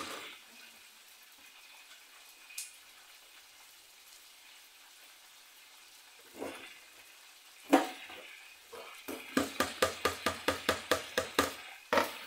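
Kitchen knife chopping lettuce on a cutting board: a few separate knocks, then a quick run of about a dozen chops at roughly five a second near the end.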